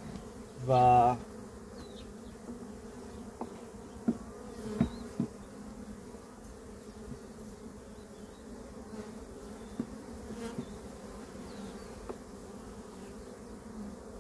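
Honey bees buzzing in a steady hum around opened hives. A few short sharp knocks come about four to five seconds in and again near ten seconds, as the wooden hive boxes and frames are worked.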